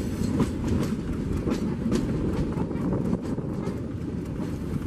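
Metre-gauge passenger train running along the track: a steady heavy rumble from the coaches, with the wheels clicking over rail joints a few times a second.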